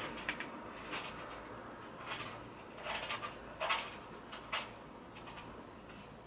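Faint, irregular soft swishes and light taps from an eyeshadow brush being worked against the palette and the eyelid. There are about a dozen brief strokes, the strongest a little past halfway.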